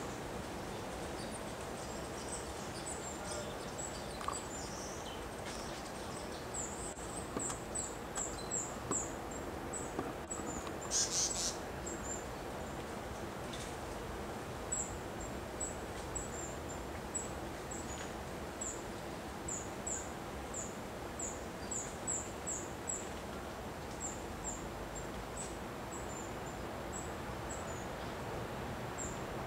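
Outdoor natural ambience: runs of short, very high-pitched chirps repeat throughout over a steady background hiss, with a brief rushing sound about eleven seconds in.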